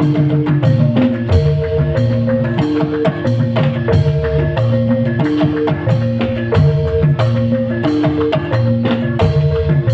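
Live band music played loud, with held pitched notes over a bass line and frequent sharp percussion hits in a steady rhythm; no singing.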